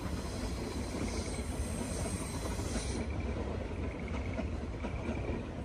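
415 series electric train running along the track in the distance, a steady rumble of wheels on rails with a faint high squeal from the wheels.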